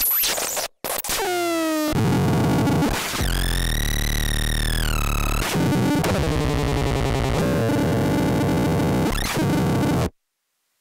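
Particle Smasher + noise synthesizer and sound processor playing harsh, glitchy electronic noise. It opens with stuttering bursts and a falling glide, then becomes a dense buzz whose pitch rises and falls, and cuts off abruptly near the end.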